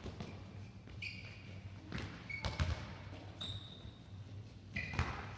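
Handballs bouncing on a sports hall floor and smacking into players' hands during passing and catching: a handful of separate sharp thuds, echoing in the large hall.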